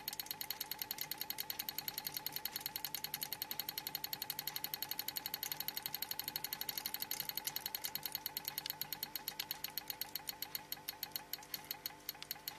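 Homemade magnetic repulsion motor running on 4.5 volts, ticking rapidly and evenly as its rotor turns, about nine or ten clicks a second, each with a short ringing tone. The ticking slows a little in the last few seconds.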